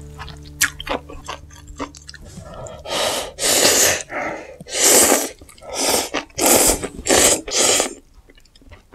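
Ramyun noodles being slurped: a quick series of loud, hissing slurps from about three seconds in, after a stretch of soft chewing and small mouth clicks.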